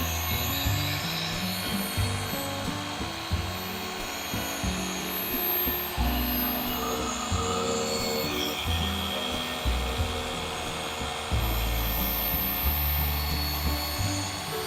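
Machine polisher buffing a headlight lens, a steady rubbing whir, with background music under it.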